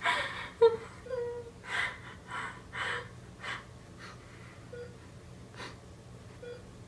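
A girl sobbing: a string of gasping breaths with short whimpers, coming quickly at first and thinning out in the second half.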